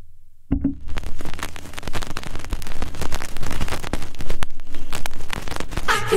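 A low electrical hum, then about half a second in a vinyl house record starts playing loud: a dense, crackly, rain-like noise texture full of irregular clicks, with a voice coming in near the end.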